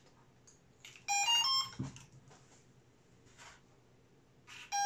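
Quick run of pitched electronic beeps stepping between notes about a second in, then a longer steady beep starting just before the end: an FPV quadcopter's motors and ESCs playing their power-up tones as the battery is plugged in.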